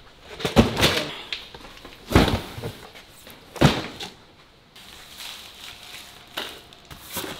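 A series of dull thumps as cardboard boxes and loose items are set down onto a hand truck, the heaviest two a little after 2 and after 3.5 seconds.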